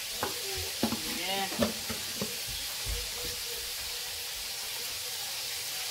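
Chicken frying in hot oil, a steady sizzle throughout. A few short knife taps on a wooden cutting board come in the first two seconds or so.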